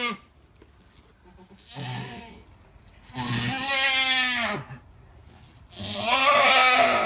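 Alpine doe in labour bleating: a short call about two seconds in, then two long, loud, drawn-out bleats, the last the loudest, as she strains to give birth.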